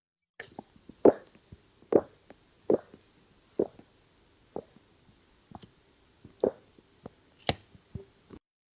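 A person gulping down water in a steady run of about nine swallows, roughly one a second. It stops abruptly near the end.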